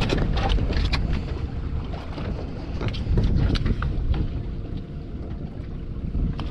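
Wind buffeting the microphone, with water lapping at a small boat's hull and scattered short knocks.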